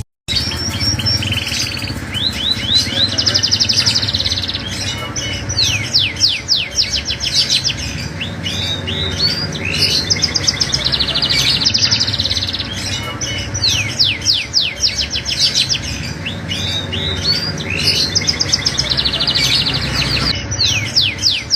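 Cage songbird singing continuously in a fast, high-pitched twittering 'ngriwik' song. Its rapid runs of downward-sweeping notes come in phrases repeated every couple of seconds, over a low steady hum.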